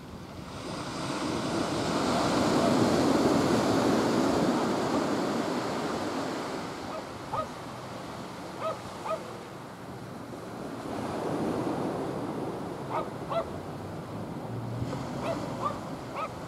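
Waves breaking on a shore: the surf swells up and dies away twice. Short harsh bird calls come in small clusters through the second half.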